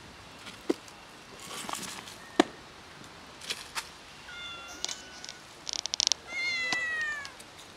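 Cat meowing twice: a short meow about halfway through, then a longer meow that falls in pitch near the end. Light clicks and rustles come between the calls.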